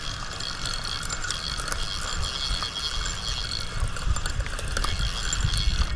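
Fishing reel being cranked steadily to reel in a hooked catfish, its gears and clicker ratcheting.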